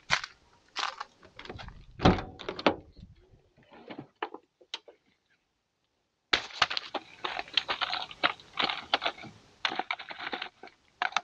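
Hard plastic knocks and thunks as yellow plastic RV leveling blocks and their case are handled. After a short pause about five seconds in, a dense run of plastic clatter follows as the blocks are set down in front of the van's tyre.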